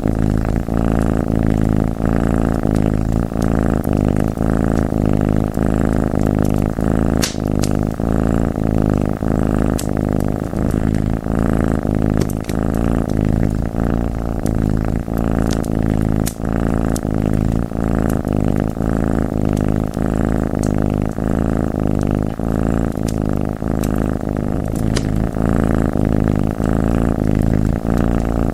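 A domestic cat purring loudly and steadily in a fast, even pulse, with a few sharp crackles and pops from a wood fire every few seconds.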